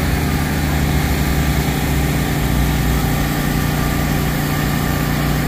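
Generator engine running steadily with a low, even hum.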